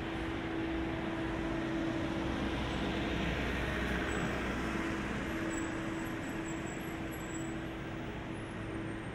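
City street traffic noise: a steady rush of vehicles that swells and eases again as a vehicle passes about three to four seconds in, over a steady low hum.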